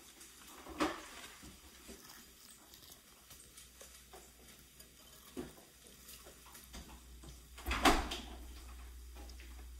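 Close-up eating sounds of crispy fried chicken: small crackles and taps as a piece is handled over a ceramic bowl and bitten and chewed, with a louder thump about eight seconds in.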